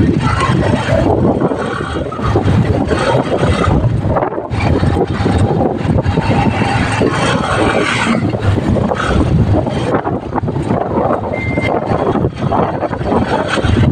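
Ride noise from the back of a moving motorcycle: wind rushing over the phone's microphone together with engine and road noise. A single short high beep sounds about eleven seconds in.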